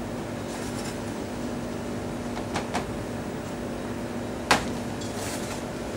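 Light knocks and clinks of metal bowls and a metal dish against a stainless steel counter while courgette slices are dredged in flour, two small clicks near the middle and one sharp knock about four and a half seconds in. A steady mechanical hum runs underneath.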